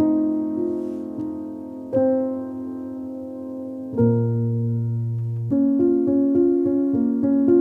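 Background piano music: slow held chords that change every couple of seconds, with a deep bass note for a moment about four seconds in, then a quicker run of repeated notes.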